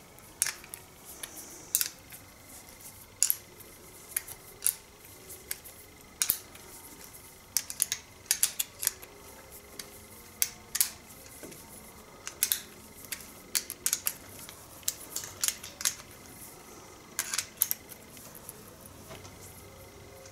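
Small open-ended spanner clicking and ratcheting against the 8 mm bolt heads and metal housing of a hedge trimmer's cutter head as the bolts are undone: irregular sharp metallic clicks, some in quick clusters.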